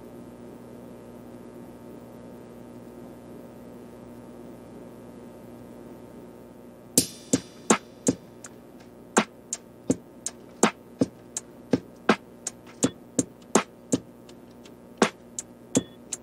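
Background music: a faint steady hum for about seven seconds, then sharp electronic percussion clicks begin in an uneven beat, about two to three a second.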